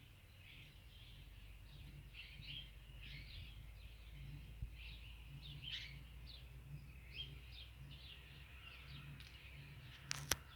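Small birds chirping in quick, short calls, over and over, with a low steady rumble beneath. Two sharp clicks near the end.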